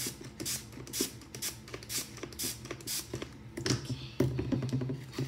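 Quick taps and swishy rustles, about two to three a second, from a plastic hairbrush being handled at a countertop. They get denser and louder near the end.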